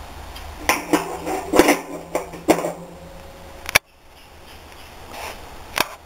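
Steel T-bar arms clanking against the washing machine's stainless steel drum and shaft as they are set in place: a handful of sharp metallic knocks with a short ring, and one more knock near the end.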